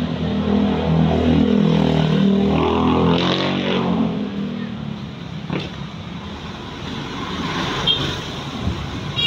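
A motor vehicle's engine passing close, loudest in the first few seconds, then fading into general street traffic noise.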